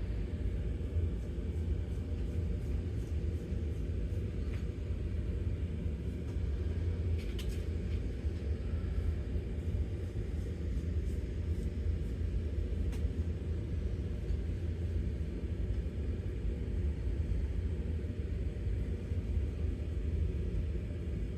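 Steady low background rumble, unchanging throughout, with a few faint light ticks.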